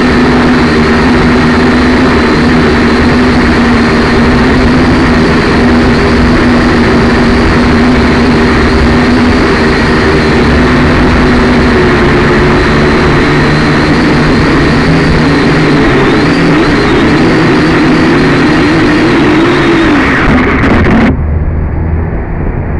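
Syma X5C toy quadcopter's small electric motors and propellers whining steadily under heavy wind hiss, the whine wavering in pitch in the later part as the drone is buffeted by strong wind. Near the end the whine and hiss cut off abruptly.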